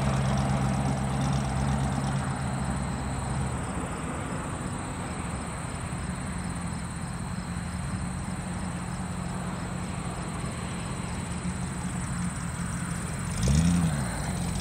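Steady outdoor background noise with a low engine-like hum and a thin high insect trill. Near the end comes a brief louder swell with a wavering low pitch.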